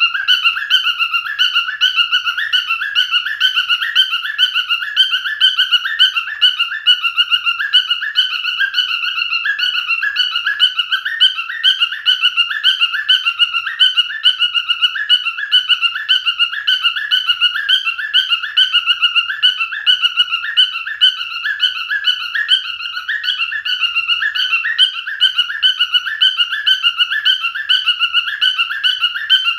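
Male cockatiel singing: a long, unbroken run of quick repeated whistled chirps at an even level.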